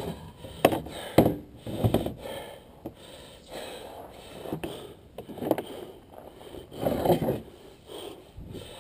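Irregular knocks and scrapes of objects being handled and moved about, with a few sharp knocks in the first two seconds and louder scraping bursts later on.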